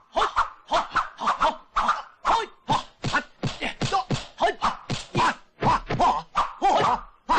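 Kung fu film fight sound: a rapid string of punch and block hit effects, about three a second, mixed with the fighters' short shouts.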